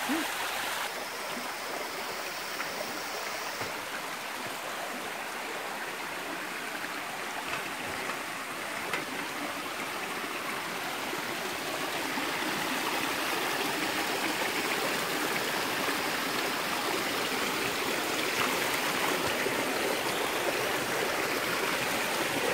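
Shallow stream of muddy storm runoff flowing over loose rocks, a steady rush of water that grows louder about halfway through.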